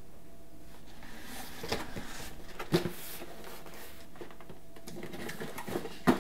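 Cardboard shipping boxes being handled and stacked, with rustling and scraping and two louder thumps, about three seconds in and near the end.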